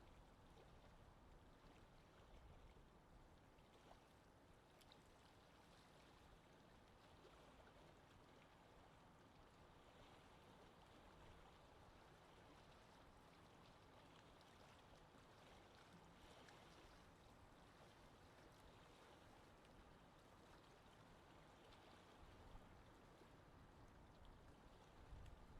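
Faint lake ambience: a soft, steady wash of water, with a couple of low bumps near the end.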